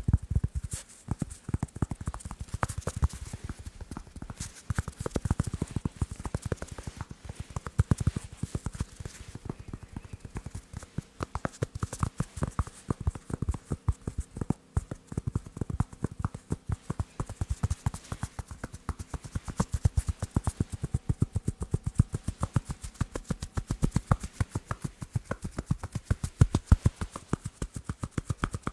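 Fast tapping with fingers on sports balls, a dense, unbroken run of quick taps and knocks.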